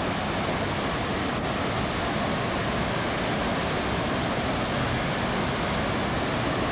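Blackwater Falls in flood, a steady rush of high water pouring over the falls.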